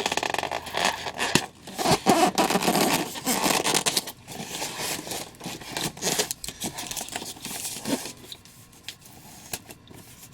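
A statue's packaging box being opened by hand: tearing, crinkling and scraping of the packing, with many quick rustles and clicks, loudest in the first few seconds and quieter near the end.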